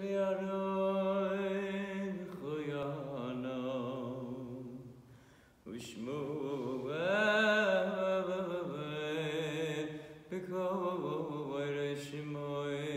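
A male cantor singing a cantorial chant solo and unaccompanied, holding long notes with a wavering vibrato and ornamented turns. He sings in three phrases, with short breaks about five and a half and ten seconds in.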